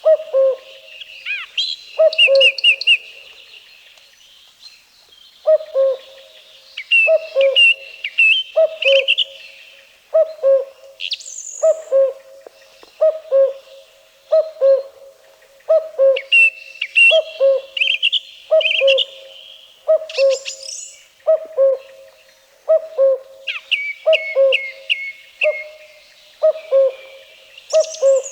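Common cuckoo calling its two-note "cu-coo" about once a second, over a song thrush singing short phrases of quick notes, each note repeated several times.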